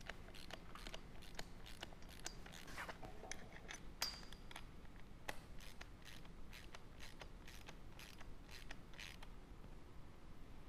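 Ratcheting wrench clicking faintly in short, irregular runs while tightening nylock nuts onto the ladder bracket bolts.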